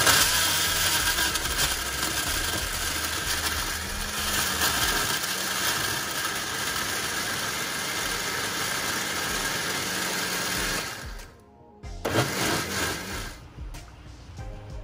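Panasonic countertop blender running steadily at speed, grinding chopped chillies, shallots and spice roots into a thick paste. It cuts off about eleven seconds in.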